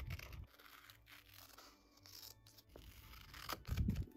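Scissors snipping through tape-covered paper, crisp cutting strokes with paper rustling, and a louder low bump from handling the paper near the end.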